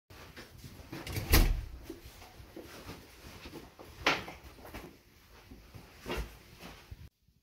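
A few sharp knocks and thumps over a low rumble, like a door or fitting being moved: the loudest about a second in, then two more about three and five seconds in.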